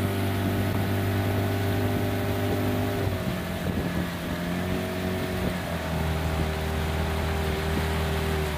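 Motorboat engine running steadily, its pitch shifting a little about three seconds in and again about halfway through.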